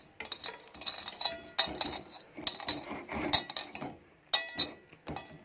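A utensil clinking and scraping irregularly against a bowl as a thick flour, spice and egg batter for chicken is mixed. The clinks ring briefly and come several times a second, thinning out near the end.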